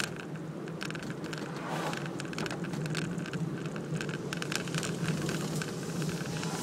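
Suzuki Celerio driving along a road, heard from inside the cabin: a steady low engine hum and tyre noise. Scattered light clicks and knocks run through it.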